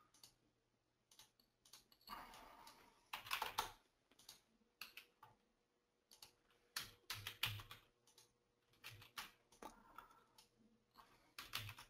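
Faint, scattered clicks of a computer keyboard and mouse, a few presses at a time with pauses between.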